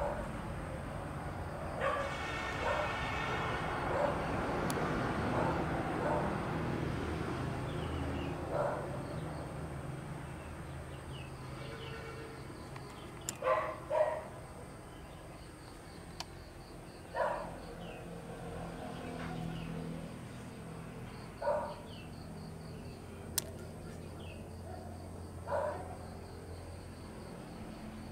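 A dog barking now and then, single barks a few seconds apart, over a steady low background hum.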